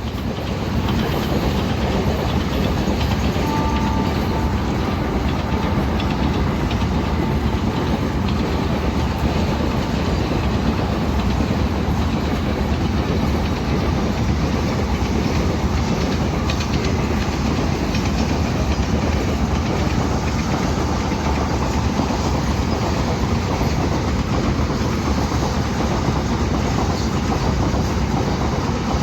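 Freight wagons of a goods train rolling past at speed, a steady rumble with the clickety-clack of wheels over rail joints.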